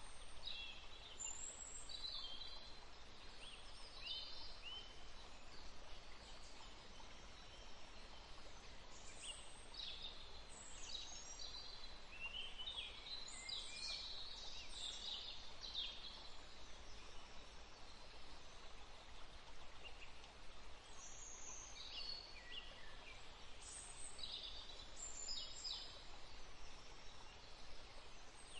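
Small birds chirping in quick, high, short calls that come in clusters with a pause in between, over a faint steady background hiss.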